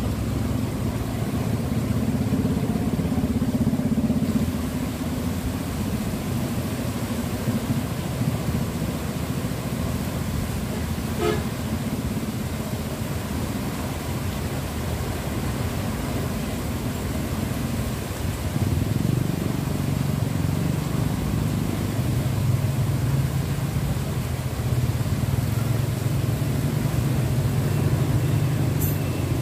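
A truck engine running steadily, dropping to a lower pitch about two-thirds of the way through, with a truck's reversing beeps starting near the end.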